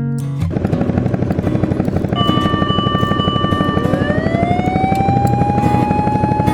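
Fire engine siren: steady high tones start about two seconds in, then a wail winds up in pitch and holds, over a fast, steady chopping pulse.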